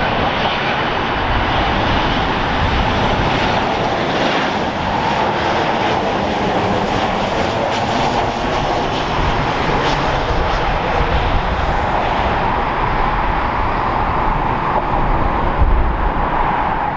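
Boeing 737's twin CFM56 turbofan engines on final approach with the gear down: a steady jet noise with a humming band in its middle, the low rumble swelling near the end as the airliner passes close by.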